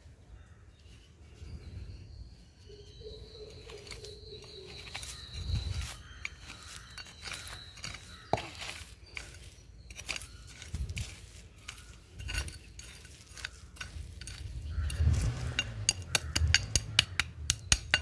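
Gusts of wind rumbling on the microphone, with many sharp clicks and clinks that come thick and fast near the end. A thin high tone is held through the first few seconds.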